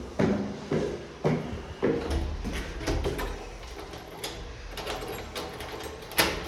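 Footsteps, about two a second for the first two seconds, then quieter shuffling and handling noise with a single sharp knock near the end.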